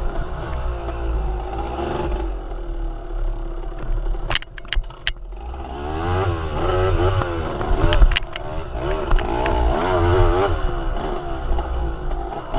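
A motor vehicle on the move: an engine whose pitch keeps rising and falling, over a steady low road rumble, with a few sharp clatters.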